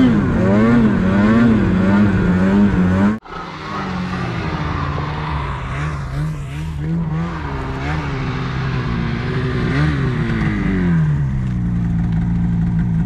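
Snowmobile engine revving up and down under throttle, with a brief sudden drop-out about three seconds in; near the end it settles to a steadier, lower pitch.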